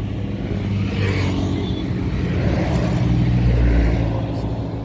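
Royal Enfield 350's single-cylinder engine running under way through a Red Rooster aftermarket exhaust: a steady low engine note that builds about three seconds in, then eases off near the end.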